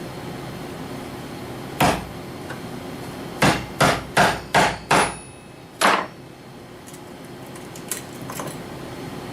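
A hammer driving tacks through leather into wood: a single strike, a quick run of five strikes about two to three a second, then one more.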